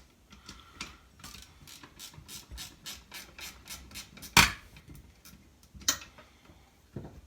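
Ratchet wrench with a 7/16 socket clicking in quick, even strokes, about five a second, as a fastener on a McCulloch Super Pro 81 chainsaw is turned out. A loud metal clank follows about four and a half seconds in, and a lighter one about a second and a half later.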